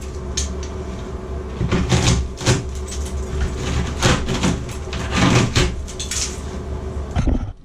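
Irregular knocking, clattering and scraping of tools and fittings being worked in a tiled wall opening, over a steady low hum. Everything drops away abruptly near the end.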